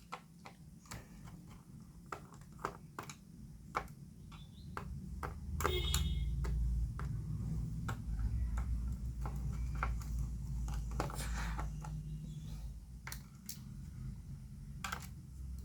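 Scattered small clicks and ticks of a screwdriver and tiny screws being handled while screws are taken out of a laptop's underside. A low rumble runs under them from about five seconds in until near the end.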